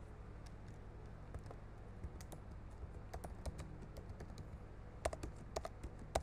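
Typing on a computer keyboard: keystrokes click in short irregular runs, sparse at first and louder and closer together near the end.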